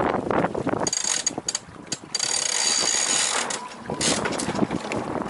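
Sailboat deck hardware working a line: a high whir carrying two steady high tones for about a second and a half. Wind buffets the microphone before and after.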